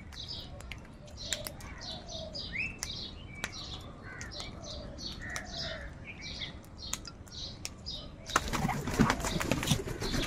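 Crows calling, many short high calls in quick succession with a few lower ones mixed in. About eight seconds in, a loud burst of rustling and flapping takes over and is the loudest part.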